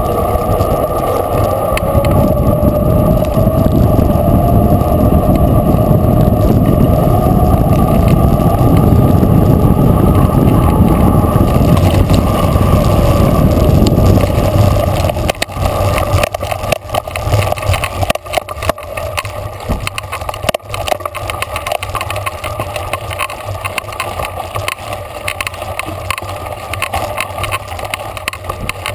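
Mountain bike ridden fast downhill: a loud rumble of wind on the camera and tyre hum on asphalt, giving way about halfway through to a quieter, constant rattle and clatter of the bike over a rough dirt and gravel trail.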